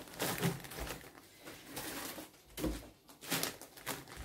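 Clear plastic bags of dry treats and monkey biscuits rustling and crinkling as they are handled, in short irregular rustles.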